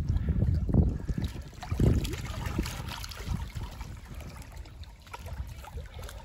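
Wind buffeting the microphone in gusts, strongest in the first two seconds, over small wind-driven waves lapping at a lakeshore.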